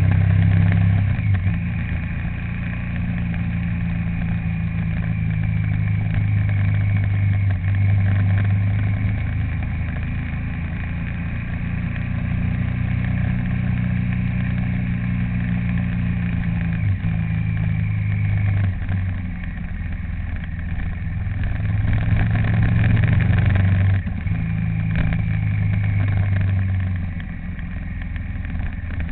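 A vehicle's engine running while driving. Its low hum holds steady for stretches and shifts pitch every few seconds as the speed and gears change.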